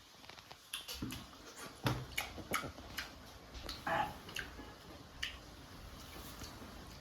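Close-up eating sounds: irregular wet clicks, smacks and chewing of someone eating fruit salad, with a short vocal sound about four seconds in.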